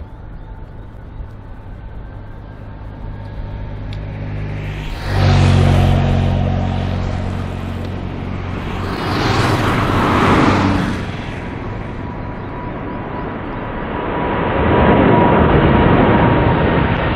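Boeing 787-9 airliner's jet engines at takeoff power, a steady noise that grows louder near the end as the plane climbs overhead. Twice, about five and ten seconds in, road vehicles, one of them a motorcycle, pass close and loud.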